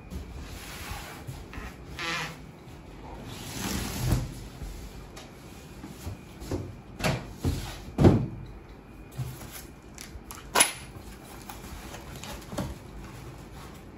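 A large cardboard shipping box being opened and unpacked: rustling of cardboard and plastic wrap, then a series of knocks and thumps as polystyrene packing and parts are shifted inside the box, the loudest thump about eight seconds in and a sharp knock a couple of seconds later.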